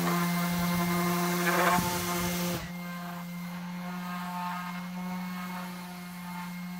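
Random orbital sander running on 2x4 framing lumber, easing over the edges of the railing pieces: a steady motor hum under a scratchy sanding hiss. The hiss drops away suddenly about two and a half seconds in, leaving the quieter steady hum.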